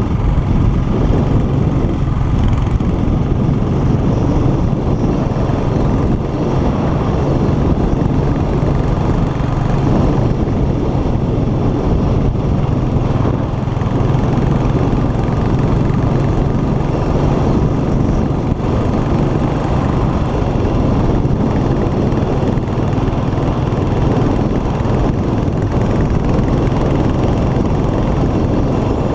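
Royal Enfield motorcycle's single-cylinder four-stroke engine running through its stock exhaust, heard from the saddle while riding at a steady cruise with no revving or gear changes.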